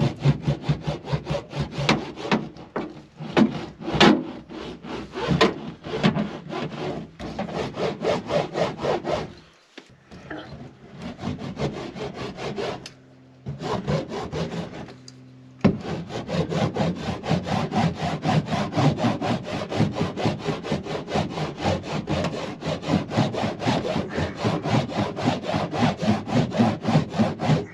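Hand roller worked rapidly back and forth over sound-deadening mat stuck to a van's sheet-metal sliding door, pressing it down. It makes a fast, rhythmic rubbing of several strokes a second, pausing briefly twice.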